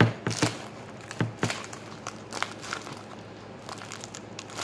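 Clear tape and plastic wrapping crinkling as a homemade tape-covered squishy is squeezed and handled, with a cluster of sharp crackles in the first second and a half and lighter crinkles after.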